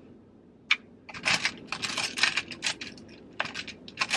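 Makeup brushes and small plastic cases clacking and rattling as they are rummaged through in a basket: one click about a second in, then a quick run of clatters.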